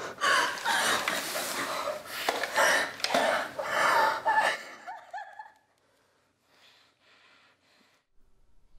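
A man gasping and breathing hard in panic, loud and ragged for about four and a half seconds, then dying away to near silence.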